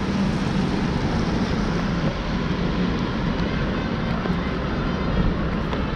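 Steady vehicle rumble with a constant low hum and no sudden events.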